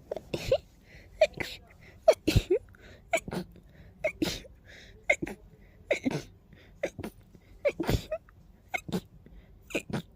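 A person sneezing fast and repeatedly, about one to two sharp sneezes a second, often in quick pairs.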